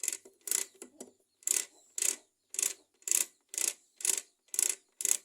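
Regular mechanical clicking, about two clicks a second, from a Honda C100-type motorcycle gearbox modified with a reverse gear being worked by hand in 3rd gear, which the modification has blocked from shifting into 4th.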